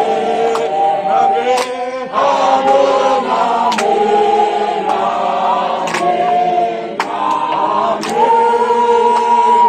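A group of people singing together in harmony, holding long notes. A few sharp claps or knocks come at uneven intervals.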